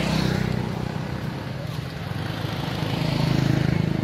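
A motor vehicle engine running, its hum swelling louder just after the start and again near the end.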